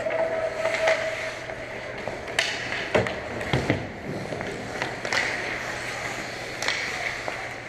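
Ice hockey skates scraping and carving on the rink, with sticks and puck knocking sharply several times, loudest about three seconds in.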